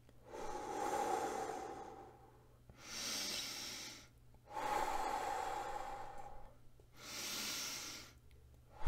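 A man taking slow, deep calming breaths: two long, louder out-breaths blown through pursed lips alternate with two shorter in-breaths, with short pauses between.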